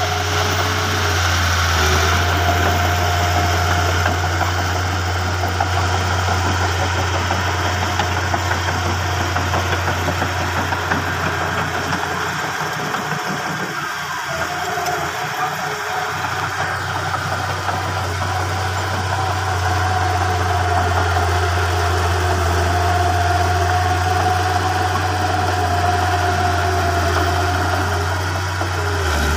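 Diesel engine of a small crawler bulldozer running steadily as it pushes fill dirt, a continuous low engine hum with a steady higher tone above it.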